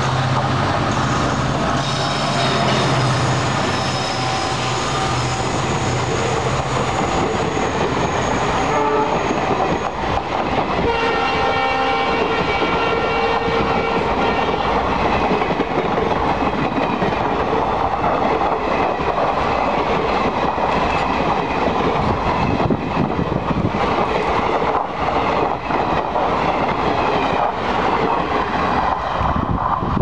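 EMD WDG4 (GT46MAC) diesel-electric locomotive passing on a notched-up throttle: its two-stroke V16 engine drones deeply while the air horn blows long blasts through the first half. The passenger coaches then roll past with a steady rumble and clickety-clack of wheels over rail joints, fading as the train moves away.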